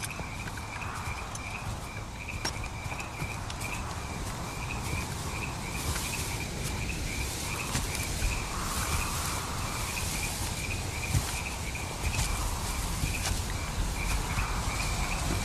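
Night-time field ambience: crickets chirping in a steady, evenly pulsing high trill over a low rumble.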